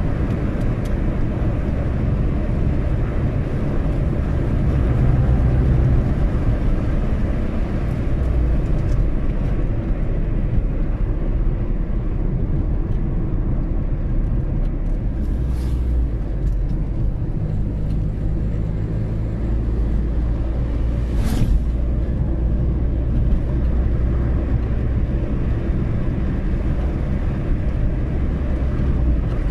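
Car driving along a road: steady engine and tyre rumble with a low engine hum. Two brief swishes come about halfway through and about two-thirds of the way in.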